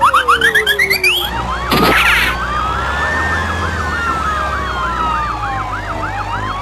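Emergency sirens sounding: a fast yelp, about three to four rises and falls a second, over a slower rising and falling wail. A run of quick rising whistles opens it, and a short noisy burst comes about two seconds in.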